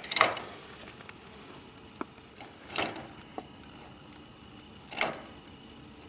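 Three short, harsh bursts of noise about two and a half seconds apart, with a few faint clicks between them, from a Eurasian magpie stirring inside a wire cage.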